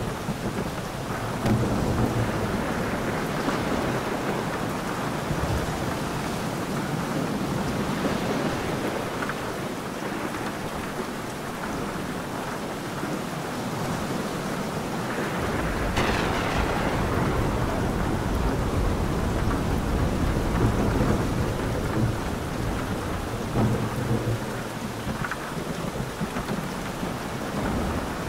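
Thunderstorm: steady heavy rain with thunder. A sharp thunderclap about halfway through is followed by several seconds of low rolling rumble.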